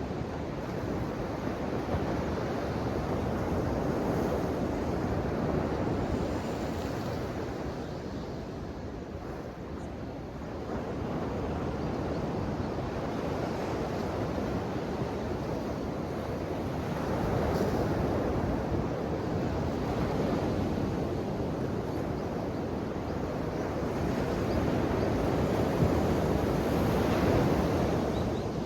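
Ocean waves washing ashore: a continuous rush of surf that swells and ebbs, with stronger surges about four seconds in, around seventeen seconds, and near the end.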